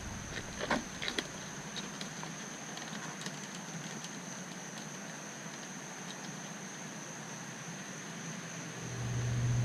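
Plastic interior door handle of a Chevrolet Suburban being worked free of its retaining clips on the removed door panel: a few sharp plastic clicks in the first second, then scattered faint ticks and handling noise. A low hum rises near the end.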